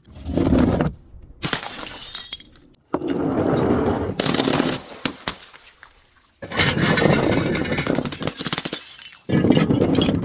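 Glass bottles being crushed and shattered, crunching and clinking in about six loud bouts of one to three seconds each, full of sharp cracks, with short pauses between.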